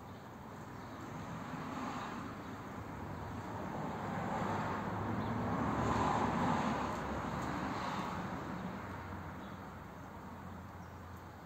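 Long rolling rumble of thunder from an approaching storm. It swells slowly to its loudest about six seconds in, then dies away.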